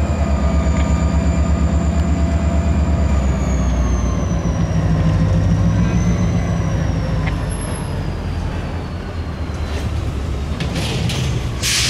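CSX diesel locomotive 6432's engine running with a fast, even low beat as it creeps along the track, with a high whine that slowly falls in pitch. Near the end come a few short hisses of air.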